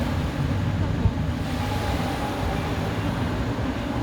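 Steady low rumbling noise of surf at the shore, mixed with wind on the microphone.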